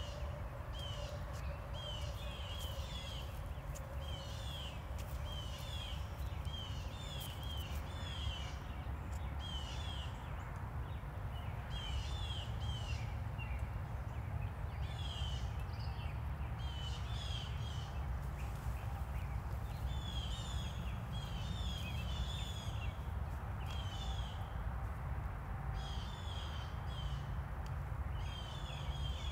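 Birds calling throughout, short high chirp notes repeated in quick clusters, over a steady low rumble.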